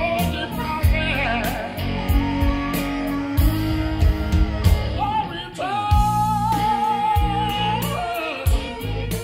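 Blues-rock song with guitar and singing played back over Canton Reference 9.2 DC hi-fi speakers and a Canton subwoofer, with a steady low beat and a long, wavering held note from about six to eight seconds in.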